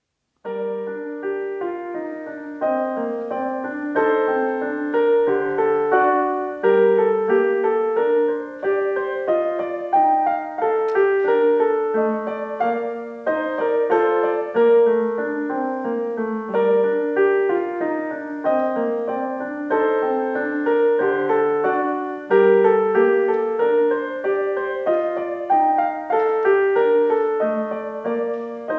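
Digital piano playing a melody over lower accompanying notes, starting about half a second in.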